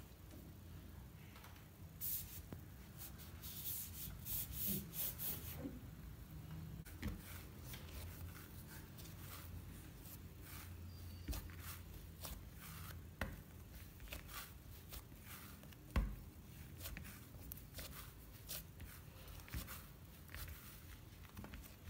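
Bread dough being divided with a plastic scraper and rounded by hand on a silicone baking mat: soft rubbing and tacky handling noises with scattered small clicks, and one sharper knock about 16 seconds in.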